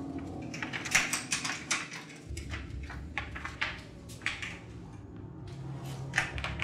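An irregular string of light clicks and taps, then a door handle and latch clicking sharply as the handle is turned near the end, over a faint low hum.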